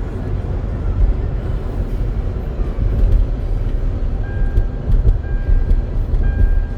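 Steady low rumble of road and engine noise heard inside a moving car's cabin. From about four seconds in, a thin high beep repeats roughly once a second.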